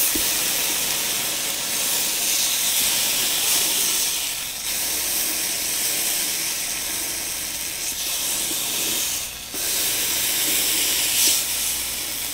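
A rice cake (kirimochi) coated in sweet gochujang tteokkochi sauce, sizzling in a hot nonstick frying pan as a steady hiss.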